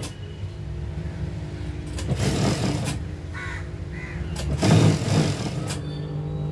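JUKI industrial sewing machine stitching a seam in two short bursts, about two seconds in and again near five seconds, over a steady low motor hum.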